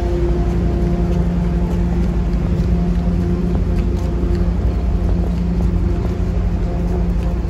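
A steady low rumble with a constant droning hum, like a large engine running, along with the roll of a wheeled suitcase over wet pavement.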